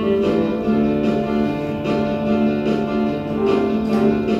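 Background music: traditional Ethiopian music with sustained pitched tones over a low held note.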